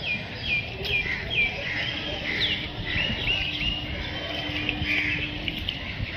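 Birds chirping: a series of short whistled notes, repeated about twice a second, fading out about halfway through, over a constant low rumble. A faint steady low hum runs under the middle part.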